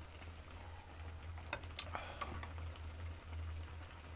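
A few light clicks of utensils against the pan and bowl while noodles are served, over a steady low hum.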